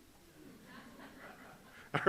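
Faint, distant murmur of congregation voices answering a question, low under the room tone. The preacher's voice starts again at the very end.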